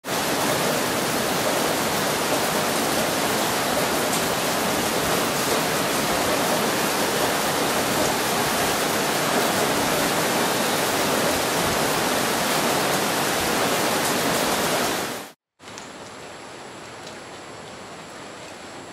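Loud, steady rushing of water in rainforest, like heavy rain on the canopy or fast-flowing water. It cuts off about fifteen seconds in, and a quieter, even hiss with a thin, steady high tone follows.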